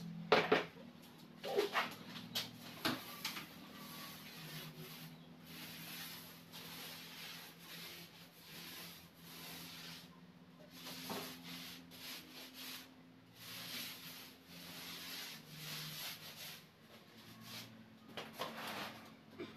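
Paint roller on an extension pole rolling paint onto a concrete wall: repeated soft rasping strokes. A few knocks from the pole being handled come in the first three seconds.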